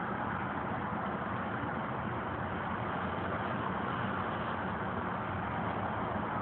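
Steady droning rumble with a faint low hum, unchanging throughout, recorded on a mobile phone; the uploader takes it for one of the strange noises heard in the sky around the world.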